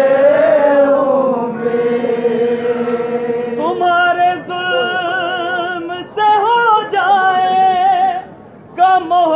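A noha, a mourning lament, chanted by men's voices: a group of men holds a long line together, then from about four seconds in a single male reciter sings the next lines alone with wavering, drawn-out notes, breaking off briefly twice.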